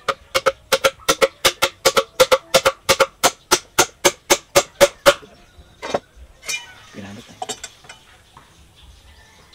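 Rapid, evenly paced tool strikes on the tree stump being carved, about four a second, each with a short ring. They stop about five seconds in, and a few separate knocks and scraping sounds follow.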